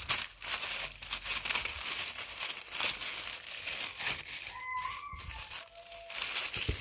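Gift-wrapping paper crinkling and rustling continuously as a package is unwrapped by hand.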